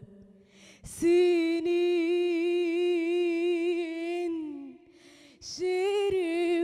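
A woman singing Egyptian tarab unaccompanied. After a short pause and a breath, she holds one long steady note for about three seconds, lets it trail off, takes another breath and sings on.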